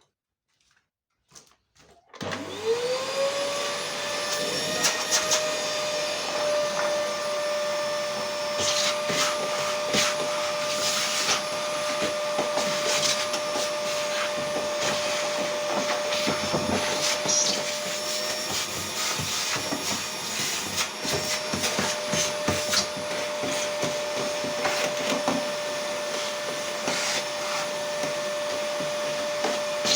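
An electric motor starts about two seconds in, spinning up within a second to a steady whine, with irregular rattling and hissing bursts over it.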